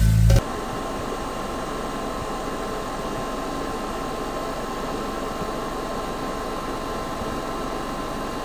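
Steady, even hiss of background noise with a faint steady tone in it; a music track cuts off just as it begins.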